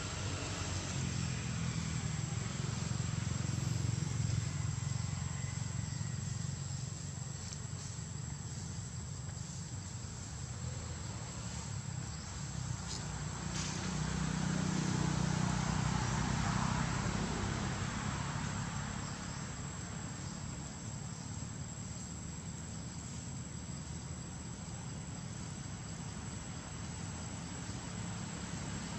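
Outdoor ambience: a steady high insect drone over a low rumble of distant traffic that swells up twice, about three seconds in and again around the middle.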